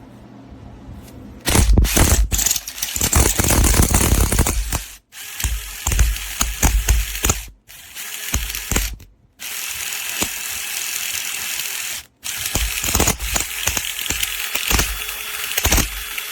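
DeWalt Atomic 20V MAX 3/8 in. cordless impact wrench (DCF923) running in several bursts with a fast rattling hammer, each burst cutting off abruptly.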